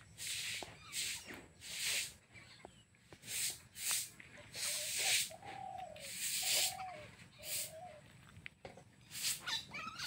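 Short arched animal calls, four or five in a row about halfway through and a few rising ones near the end, amid repeated brief hissing rustles.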